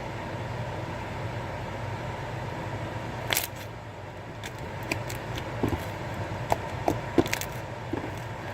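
Slime being squeezed and worked by hand, giving a scattered series of small clicking pops over a steady background hum.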